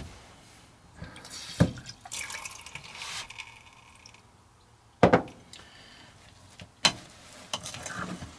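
A little water poured into a bowl of scone mix, about two seconds of trickling, with four sharp knocks of a bowl and utensils.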